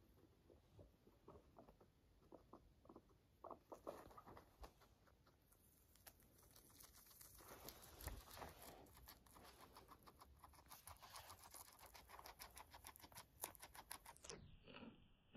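Guinea pig chewing a leafy green stem: faint, fast crunching clicks, sparse at first and then a dense steady run from about six seconds in.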